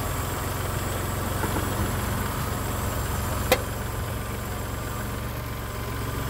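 Tractor engine running steadily at low revs as its front loader bucket pushes against a Jeep's front bumper. A single sharp click sounds about three and a half seconds in.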